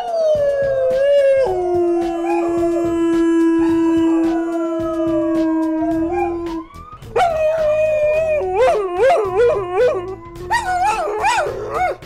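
Wolves howling. A howl slides down in pitch, then one long steady howl is held for about five seconds, and from about seven seconds in several wolves howl together with wavering, yipping calls.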